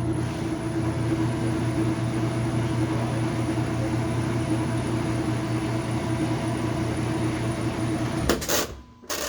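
Washing machine running with a steady electrical hum, stopping abruptly about eight seconds in, followed by a couple of clicks. This is a washer that won't spin: the tub stays in the same spot.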